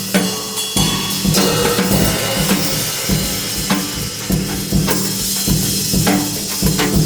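Background music with a drum kit playing a beat.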